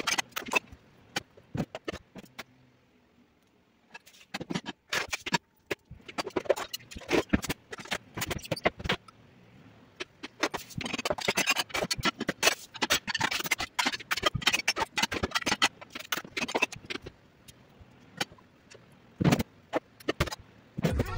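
Dishes, cups and utensils clattering and scraping in a kitchen sink during washing up, in irregular runs of clinks broken by short pauses, one about three seconds in and another near the end.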